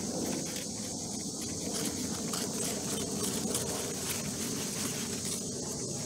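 Rustling of squash vines and leaves as a knife works at a thick cushaw squash stem, over a steady high chirring of insects.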